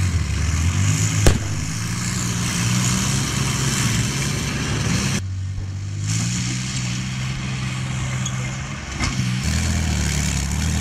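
Diesel engine of a tracked infantry fighting vehicle running hard, its pitch stepping up and down as it drives, over a hiss of track and gravel noise. A sharp knock comes about a second in, and the sound changes abruptly twice at cuts.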